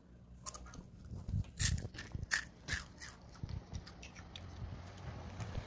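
A child chewing crunchy crab-shaped snack crackers: irregular crisp crunches.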